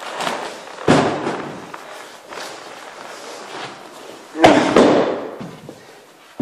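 Heavy thuds of a body and a grappling dummy hitting the floor: one about a second in, then the loudest one a little after four seconds, trailed by a quick run of smaller knocks.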